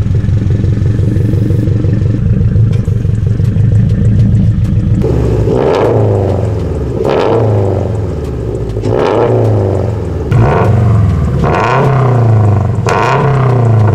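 2022 Subaru BRZ's flat-four boxer engine through a Tomei Expreme Ti titanium dual-exit catback exhaust, running steadily for about five seconds, then revved in about six quick blips, each note rising and falling.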